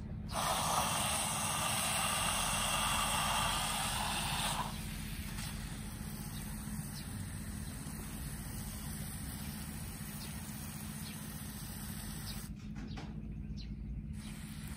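Hand pressure sprayer misting water onto seedlings: a loud, even hiss for about four seconds near the start, then a quieter steady hiss.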